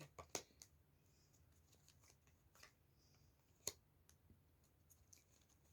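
Near silence with a few faint clicks and light rustles of tarot cards being handled and set down on a table. The clearest click comes near the start and another a little past the middle.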